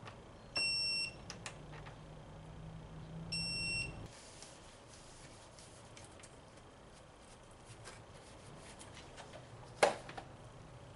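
Two short, high electronic beeps about two and a half seconds apart, over a low hum that cuts off about four seconds in; a sharp click near the end.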